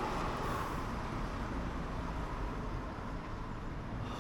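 Road traffic in a town: a car's tyre and engine noise fading as it passes, over a steady low rumble.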